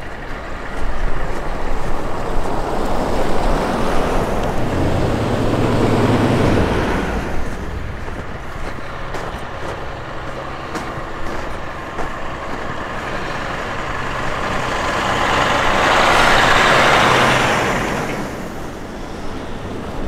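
Road vehicles passing by, heard as two swells of engine and tyre noise. The first comes a few seconds in with a low engine hum, and the second, louder one rises and fades near the end.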